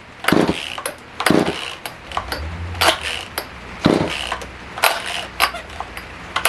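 Poulan Wood Shark chainsaw pull-started again and again: the recoil starter rope ratchets out and rewinds several times, about once a second, and the engine does not fire. The carburettor is not drawing fuel on its own, which the mechanic puts down to a stuck or dried-out diaphragm.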